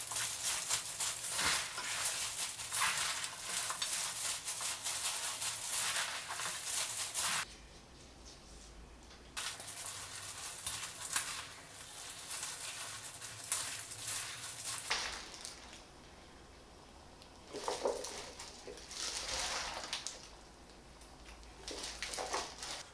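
Plastic-gloved hands tossing and squeezing fresh young cabbage leaves with chili seasoning in a stainless steel bowl: crisp rustling and crunching of the leaves. It is steady and loudest for the first seven seconds or so, then comes in several shorter, quieter bursts of mixing.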